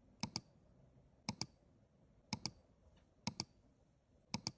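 Quiet double clicks, five pairs, evenly spaced about a second apart.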